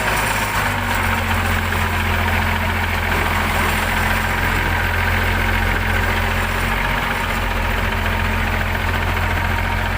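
Unimog truck's diesel engine running steadily at low revs, a deep even drone with no breaks.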